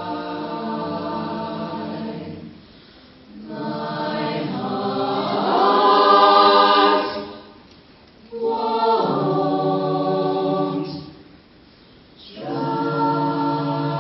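Mixed-voice jazz choir singing a cappella into handheld microphones: sustained close-harmony chords broken by three brief pauses, swelling loudest about six seconds in.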